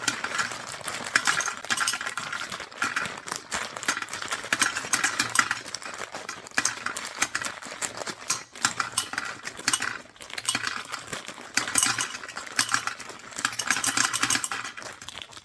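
Gumballs poured from a small bag into a gumball machine's globe: a dense, continuous clatter of hard candy balls striking the globe and each other, dropping out briefly twice past the middle.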